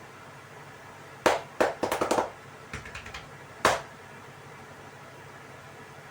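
Sharp hand slaps of a percussive tapping massage: one loud slap, then a quick run of four or five, a few softer ones, and a last loud slap about two seconds after the first, over a steady low hiss.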